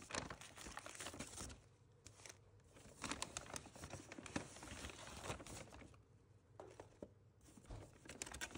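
Paper takeout bag and burger wrapper rustling and crinkling as hands dig through the bag and lift the food out, in several bursts with quieter gaps between.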